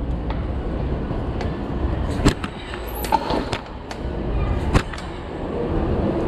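Gios FRX bicycle rolling fast over a mosaic tile floor: a steady rush of tyre and wind noise, broken by three sharp knocks from the bike's frame and drivetrain.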